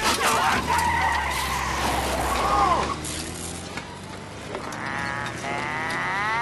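A car's engine running with tyres squealing as it pulls away, then a rising whine of an engine revving near the end.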